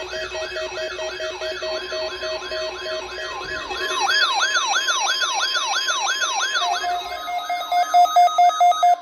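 Several NOAA weather alert radios sound their alarms together for the weekly tone alarm test. One gives a warbling, siren-like sweep about two and a half times a second; others give steady repeated beeps. Near the end a louder, faster beeping takes over, then cuts off suddenly.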